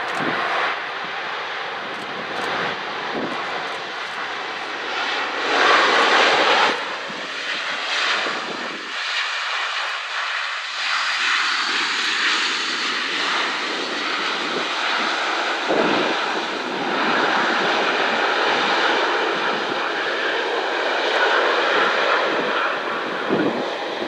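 Boeing 787-9 Dreamliner jet airliner's engines running as it rolls out on the runway just after touchdown, a steady rush of jet noise that is loudest about six seconds in.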